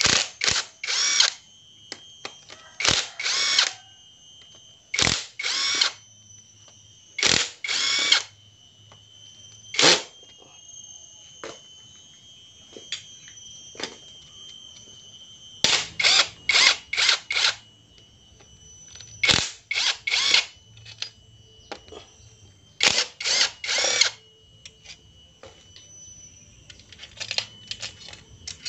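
Handheld power driver run in short bursts, two to four quick spins at a time, repeated about nine times, backing out the screws of a Honda Supra Fit engine case during teardown.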